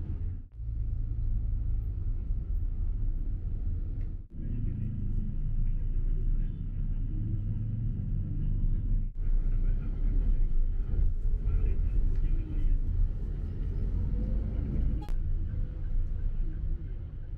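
Low, steady road and engine rumble of a car in traffic, heard from inside the cabin. It cuts out sharply three times.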